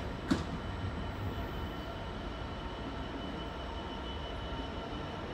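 Class 66 diesel-electric freight locomotive with its two-stroke EMD V12 engine, running as it draws a freight train slowly round curved track: a steady low rumble with a faint high whine, and two sharp clicks right at the start.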